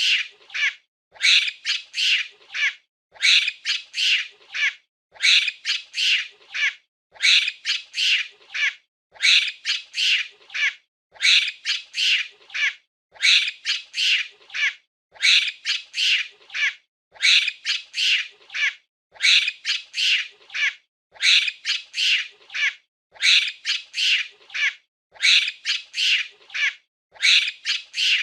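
Monkey giving shrill, squeaky calls in quick bursts of four or five, with a burst repeating about every two seconds in a steady, loop-like pattern.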